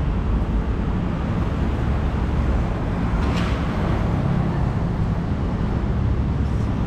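Street traffic outdoors: a steady low rumble of passing vehicles, with one brief hiss about three and a half seconds in.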